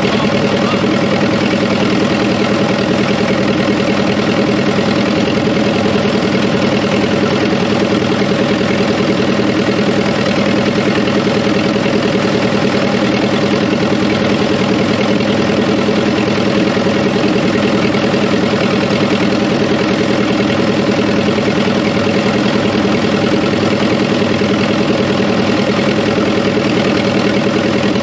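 Fordson Power Major tractor engine running steadily at an even, unchanging speed.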